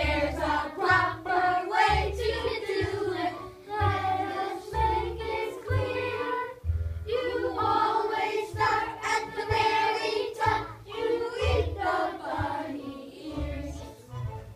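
A class of young children singing a song together, over accompanying music with a steady low beat about once a second.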